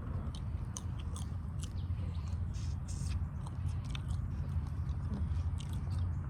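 Close-up eating sounds of a seafood boil: biting and chewing, with many short clicks and crunches. A steady low rumble runs underneath.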